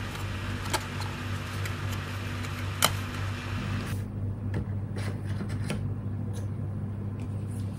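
Steady low electrical or fan hum, with a few light clicks and rubs as a small cardboard product box is handled.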